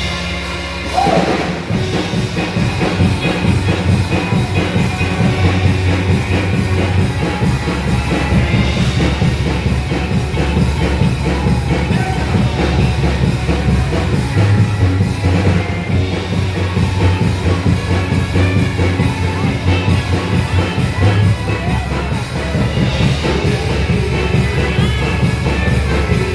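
Band music with a drum kit and a steady bass beat, and singing in places; it stops abruptly at the end.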